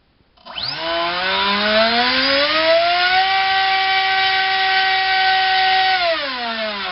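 Turnigy SK3 2700kv brushless motor driving a Gemfan 5.5x5.5 high-speed propeller on a 3S battery, spooled up for a thrust test. A loud whine starts about half a second in, climbs in pitch for about three seconds as the throttle opens, holds steady, then starts to fall as the throttle is backed off near the end.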